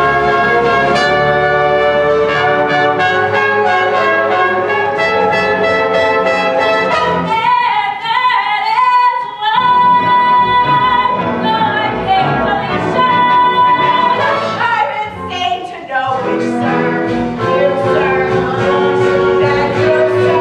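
A musical-theatre band with brass plays a lively dance number. Partway through, a woman's voice sings long, high held notes over the band.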